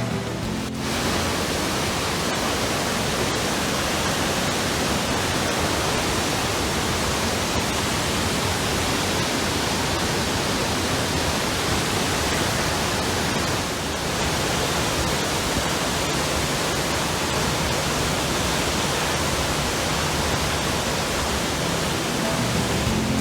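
Akiu Falls, a large waterfall, pouring with a steady, even rush of falling water.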